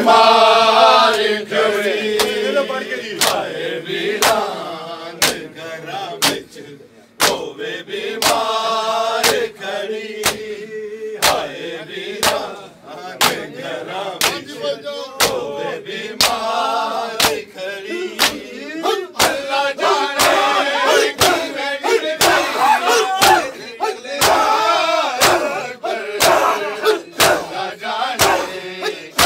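Men chanting a noha (mourning lament) together while beating their chests with open hands (matam). The slaps land together as a steady beat of sharp claps, a little more than one a second, under the voices.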